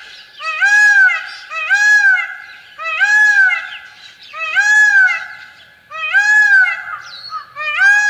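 Indian peafowl giving its loud call over and over, about six calls spaced roughly a second and a half apart. Each call rises and then falls in pitch.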